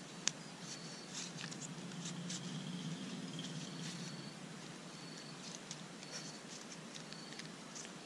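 Dry twisted bark cord rustling and crackling as it is threaded and pulled tight while weaving a sandal, with a sharp click just after the start. Short high chirps repeat faintly in the background.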